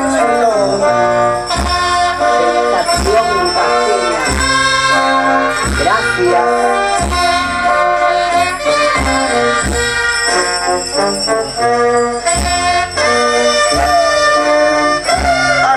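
Brass band playing a Negritos dance tune: trumpets and trombones carry the melody over a steady bass drum beat.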